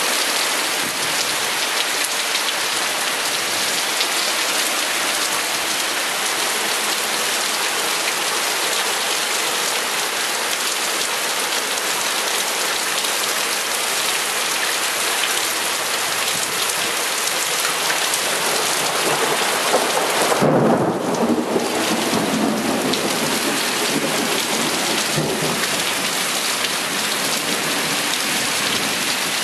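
Heavy rain pouring steadily during a thunderstorm, with a loud thunderclap about two-thirds of the way through that rumbles on for a few seconds.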